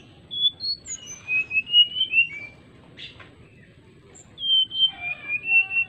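Brown-chested jungle flycatcher singing two phrases of clear, flute-like whistled notes that step up and down in pitch, the first starting just after the beginning and the second about four seconds in, with a short rasping note between them.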